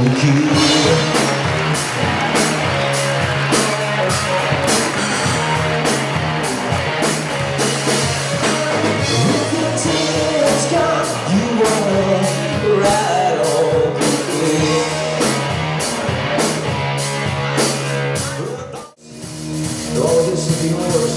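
Live rock band playing: electric guitar and drum kit with a singer, loud and full. Near the end the band cuts out together for a split second, then comes straight back in.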